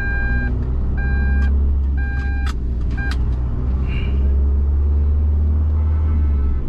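A vehicle warning beeper sounds about once a second, each beep half a second long, and stops after about three seconds, with a few sharp clicks among the beeps. Under it the camper van's engine and tyres rumble steadily while driving, getting louder about four seconds in.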